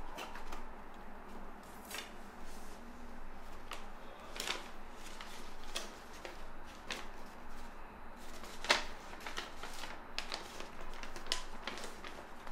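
Paper rustling with scattered small clicks and taps as a wooden picture frame is handled and a sheet of paper is taken out and looked over; one sharper tap about two-thirds of the way through.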